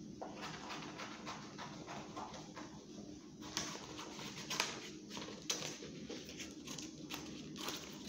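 Scissors snipping through a sheet of paper, a run of short snips with paper rustling, the loudest snips coming in the second half.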